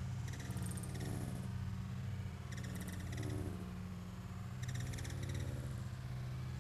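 Small birds chirping in short bursts of rapid, high, squeaky notes, about four times, over a steady low hum.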